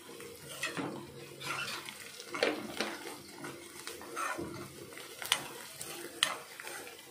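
A steel spoon scraping and clinking against a kadai while sliced onions are stirred and fried. The strokes are irregular, about one a second, with the two sharpest knocks in the last couple of seconds.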